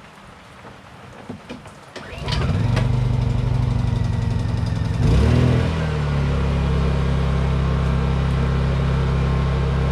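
Honda portable generator's engine started on choke: it catches about two seconds in and runs steadily, then about three seconds later changes pitch and settles into even running.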